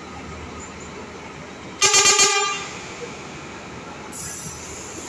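A coach's horn sounds one short, loud blast about two seconds in, lasting under a second. A brief high hiss follows a couple of seconds later.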